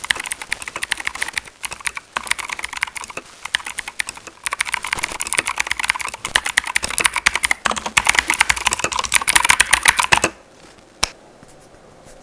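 Keychron K2 V2 mechanical keyboard with clicky blue switches being typed on fast, a dense stream of keystroke clicks. The typing stops about ten seconds in, and one lone keystroke follows about a second later.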